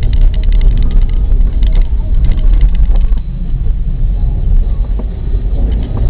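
A car driving over a snow-covered forest road, heard from inside: a heavy low rumble of tyres and engine, with a dense crackle of short knocks for the first three seconds, then quieter.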